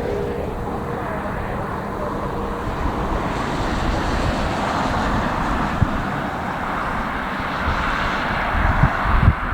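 Engine noise of an aircraft approaching to land, a steady rushing hiss that grows louder from about three seconds in, with gusty wind buffeting the microphone.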